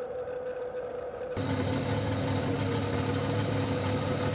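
A faint steady hum, then, about a second and a half in, a mud truck's engine idling steadily.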